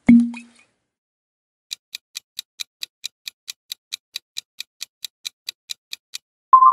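Clock-ticking countdown sound effect: about twenty sharp, even ticks, roughly four to five a second, running while the quiz timer fills. It is preceded by a short low pop as the new slide comes in, and a rising chime starts at the very end.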